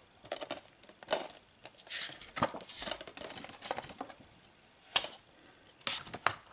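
Printed paper back sleeve being slid off a metal Blu-ray steelbook: irregular paper rustling and scraping with light clicks and taps of the case being handled, and a sharper tap about five seconds in.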